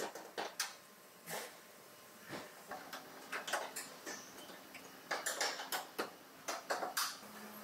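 Irregular light metallic clinks and knocks, a dozen or more, from car-body parts and hand tools being handled, with a faint steady hum starting about three seconds in.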